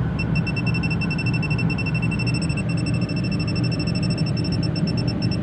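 Electronic refrigerant leak detector beeping at a high pitch, the beeps quickening shortly after the start into a rapid, almost continuous beeping: its probe is picking up leaking refrigerant gas at a capillary-line fitting. A steady low hum runs underneath.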